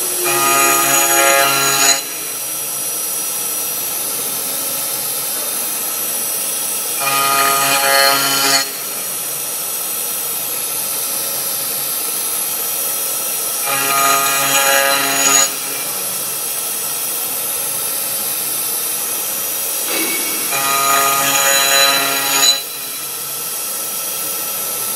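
CNC router spindle whining steadily as its end mill cuts slots in an aluminum block. About every seven seconds, four times in all, a louder pitched buzz lasting about two seconds rises over the whine as the cutter bites through the metal.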